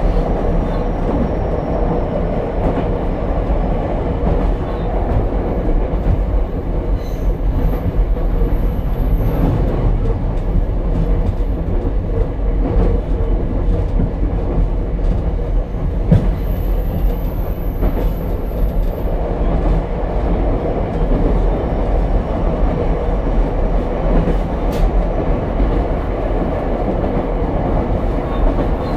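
Ichibata Electric Railway 7000-series single railcar running, heard from inside the car: a steady rumble of wheels on rail with scattered clicks. A thin, high whistle comes in twice, once about a quarter of the way through and again near the middle.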